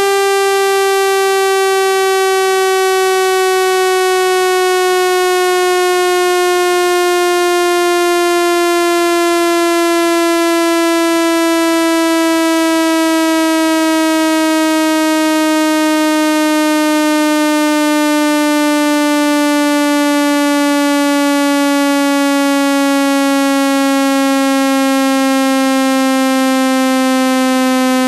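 Synthesized speaker-cleaning tone: one buzzy electronic tone, rich in overtones, gliding slowly and smoothly down in pitch at a steady loud level. It is played through a speaker to vibrate sand and dust out of the speaker grille.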